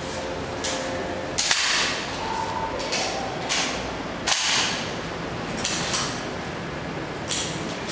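Shotgun fire from a Remington 870 pump-action shooting birdshot: two loud reports about three seconds apart, about one and a half seconds in and past the middle, with several fainter sharp reports around them.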